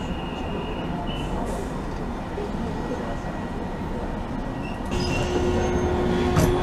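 Hiroshima streetcar running slowly over track switches, heard from the driver's cab: a steady low rumble that grows louder about five seconds in, with a held tone and a single sharp clack near the end as the wheels cross the points.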